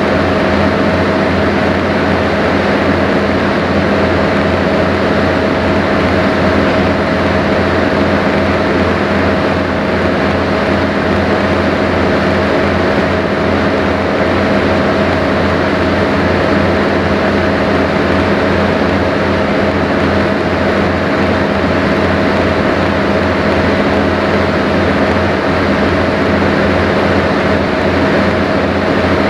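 A sightseeing boat's engine running steadily under way: a loud, constant drone with a steady hum and a low, even throb, over a hiss of water and wind on deck.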